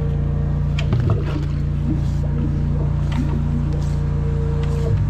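High-pressure drain jetter running with a steady hum while its hose and nozzle are sent down the sewer line.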